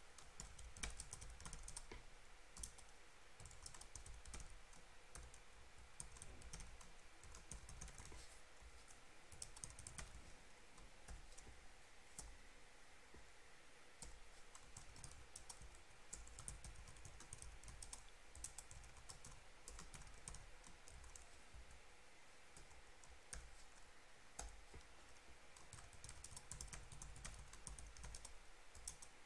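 Faint typing on a computer keyboard: quick runs of key clicks in bursts, with short pauses between them.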